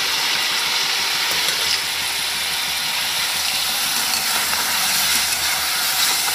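Batter sizzling as it is ladled into hot oil in an iron kadhai, a steady, dense hiss of deep frying.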